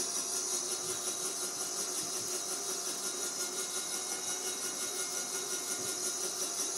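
Electric winch running steadily under load as it slowly reels in a rope hauling a folding camper trailer, a continuous mechanical drone with a high-pitched whine over it.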